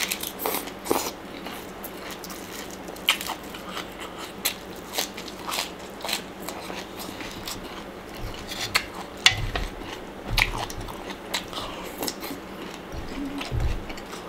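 Close-up crisp crunching and chewing of raw leafy vegetables, irregular bites and crunches, with a few dull low thumps in the second half.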